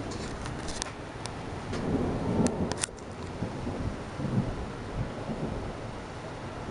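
Thunder rumbling low during a thunderstorm, swelling about two seconds in, with a few sharp ticks over the first three seconds.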